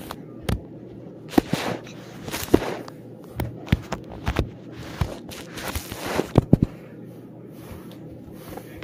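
Phone handling noise: irregular knocks, taps and rubbing scrapes on the microphone as a toddler grabs and fumbles the phone, loudest between about one and a half and six and a half seconds in.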